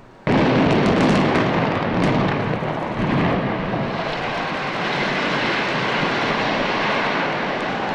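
Building implosion: demolition charges go off with a sudden loud blast about a third of a second in, followed by several more cracks and then the long, slowly fading rumble of the multi-storey building collapsing.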